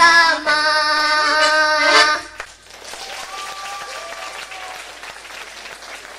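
A young girl sings a long held final note over accordion accompaniment. The song stops a little over two seconds in and audience applause follows.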